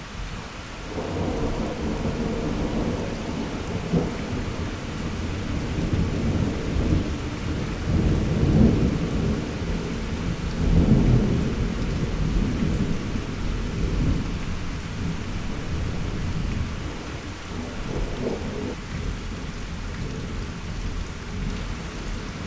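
A long roll of thunder rumbling, swelling to its loudest in the middle and easing off toward the end, over steady rain.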